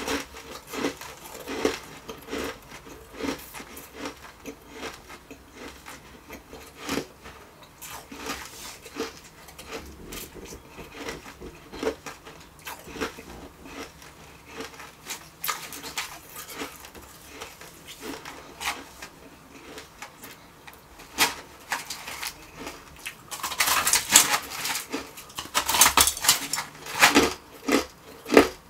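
Crunching and chewing of refrozen shaved ice, a scatter of sharp crunches that grows into a run of louder, denser crunching about 24 seconds in.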